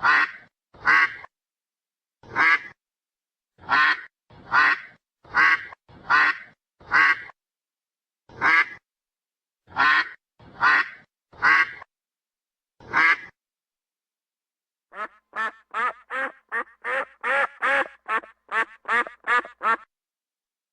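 Duck quacking: single quacks about a second apart, then after a short pause a faster run of shorter quacks, about three a second.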